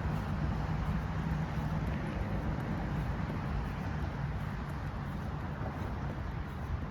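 Distant road traffic: a steady low rumble that eases slightly near the end.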